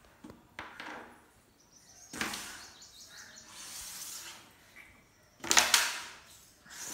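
Carrom striker flicked across a Decathlon Carrom 720 board and clacking into the wooden coins: a couple of light clicks at first, a shot about two seconds in, and a louder one about five and a half seconds in.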